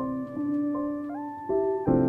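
Background music: held keyboard chords, with the notes shifting every half second or so and a new chord struck near the end.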